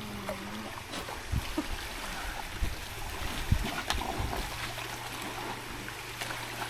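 Running water trickling and gurgling steadily, with a few soft low knocks.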